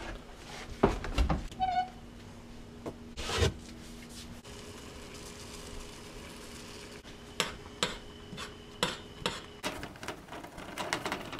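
Kitchen clatter while oatmeal is made in a saucepan on a gas stove: a string of separate clinks and knocks of a pot, utensils and a cutting board, over a faint steady hum.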